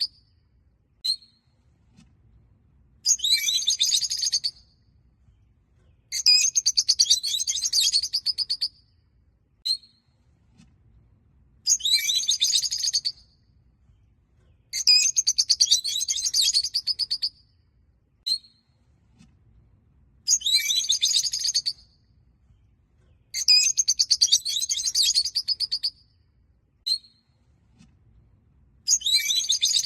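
Peach-faced lovebirds chirping: bursts of rapid, high-pitched chattering about 2 s long, repeating every few seconds, with single short chirps between them.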